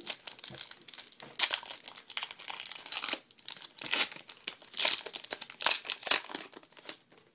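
Plastic wrapper of a football trading card pack being torn open and crinkled, an uneven run of crackles that stops just before the end.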